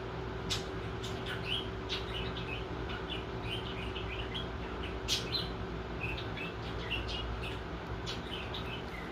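Small birds chirping: many short, high chirps overlapping one another, with two sharp clicks, about half a second in and about five seconds in, over a steady low hum.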